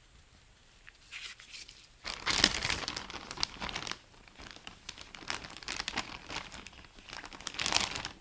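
Close rustling and crinkling handling noise with many small clicks, starting about a second in and louder from about two seconds on: hands lubricating automatic-transmission clutch parts.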